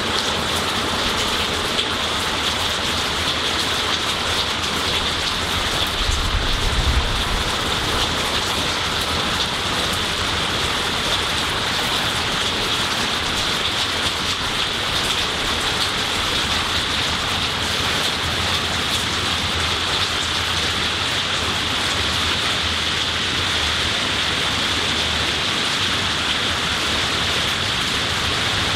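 Steady rain falling on leafy trees and garden plants, an even hiss with no letup. A brief low rumble comes in about six seconds in.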